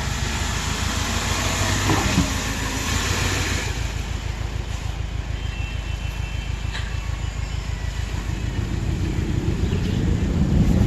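Subaru Outback crawling over a rough off-road trail: engine running under bumpy, jolting tyre and suspension noise, with a knock about two seconds in. The engine rises in pitch near the end.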